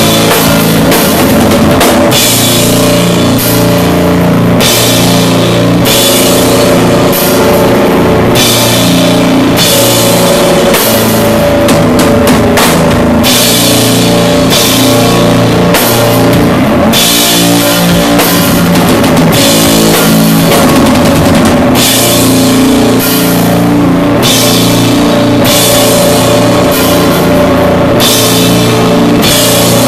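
Live doom metal band playing loud: long sustained low chords over a drum kit, with frequent cymbal crashes.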